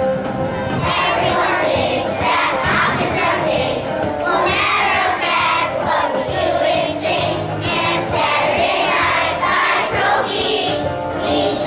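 A choir of young children singing a song together, over instrumental accompaniment.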